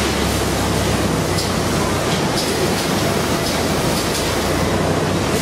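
Boss forklift truck engine running as it carries a loaded pallet of sacks past, over steady factory machinery noise with a constant low hum.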